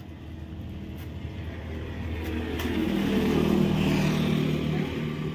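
A motor vehicle passing close by: its engine grows louder to a peak about three to four seconds in, then fades.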